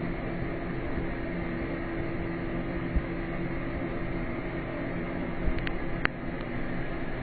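Steady mechanical hum and hiss, with a few short clicks about five and a half to six seconds in.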